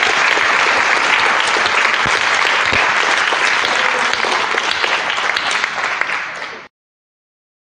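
Audience applauding steadily; the applause cuts off suddenly near the end.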